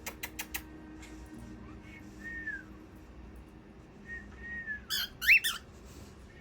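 Pet parrots whistling: a short falling whistle about two seconds in and another about four seconds in, then a loud, sharp rising call near the end, the loudest sound. A few quick clicks at the start.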